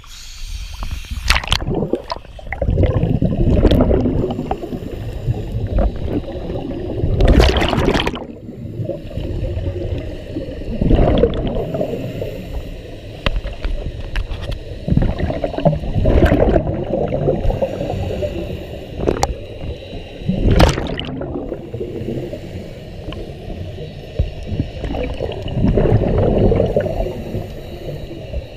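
Scuba regulator breathing heard underwater: bursts of exhaled bubbles gurgling out about every four to five seconds, with a low muffled rumble in between.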